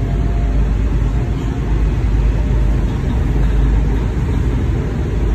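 Steady low rumble of a moving WMATA Metrorail train, heard from inside the passenger car.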